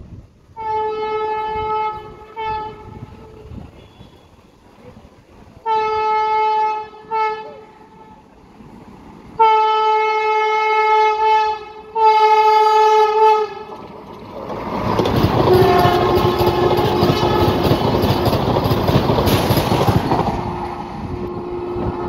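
An Indian Railways train's horn sounds in repeated blasts as the train approaches: a long blast followed by a short one, twice, then two long blasts. The train then passes at speed with a loud rushing noise and wheel clatter for about six seconds.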